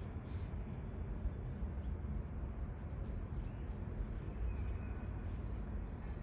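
Faint, scattered chirps of small garden birds over a steady low background rumble.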